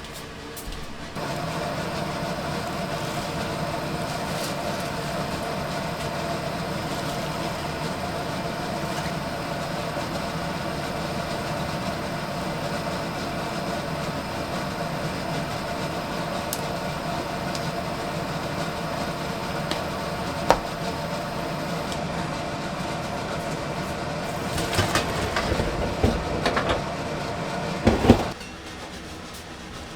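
A machine running steadily with an even hum, switched on about a second in and cut off shortly before the end, with a few knocks and clatter just before it stops.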